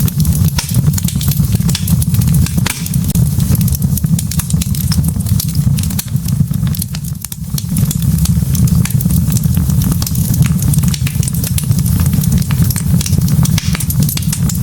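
Wood logs burning in a fireplace, crackling with many small, irregular sharp pops over a steady low rumble of the flames.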